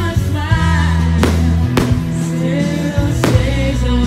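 Music with a singing voice over sustained bass notes, cut by a few sharp hits.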